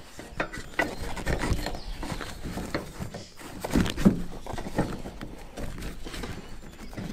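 Steel security cable and padlock being handled against a rooftop tent's metal mounting bracket: irregular clinks, rattles and rustling, with a couple of louder knocks about four seconds in.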